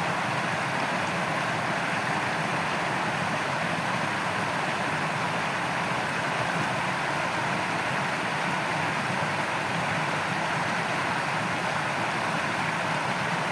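Steady rushing of shallow stream water flowing over stones, an even noise that holds unchanged.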